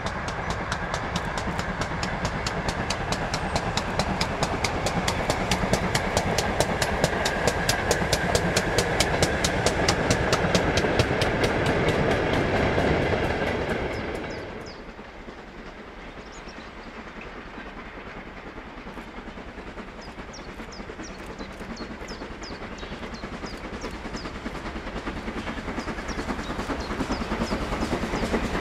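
Steam-hauled train running close by, wheels clattering in a fast regular rhythm. About halfway through it falls away to a quieter sound with scattered clicks, then builds again near the end as a train draws nearer.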